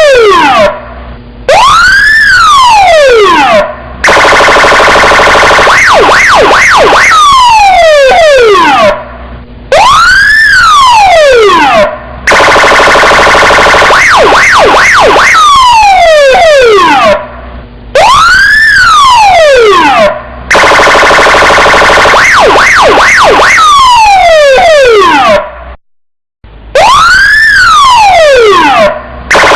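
Electronic police car siren cycling through its tones, very loud. A falling wail and a rising-then-falling wail are followed by several seconds of fast warble, with short breaks between the tones. The cycle repeats about every eight seconds.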